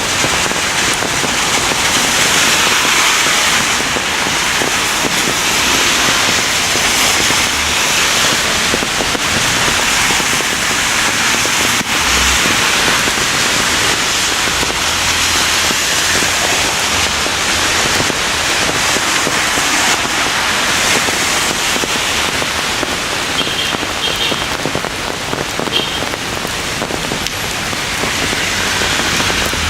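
Heavy rain falling steadily in a thunderstorm, a dense, even hiss of rain hitting surfaces.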